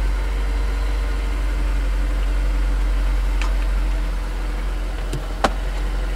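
Honda S2000's 2.0-litre four-cylinder engine idling steadily, heard from inside the cabin, with a single sharp click a little after five seconds in.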